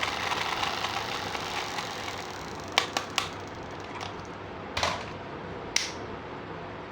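Hard plastic toy parts being handled: a stretch of fast, dense clicking and rattling, then a few separate sharp clicks, three close together about halfway through and two more near the end.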